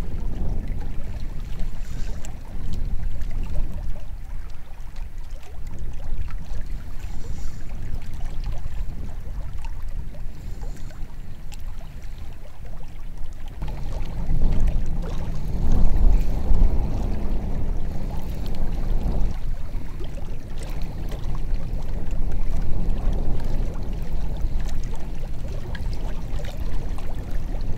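Wind buffeting the microphone: a loud, uneven low rumble that swells about halfway through and stays strong for several seconds.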